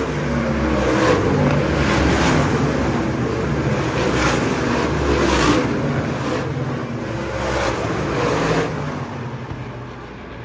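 ISMA supermodified race cars' V8 engines at racing speed as the cars pass one after another, each pass a swelling, fading engine note. The sound falls away about nine seconds in as the pack moves off.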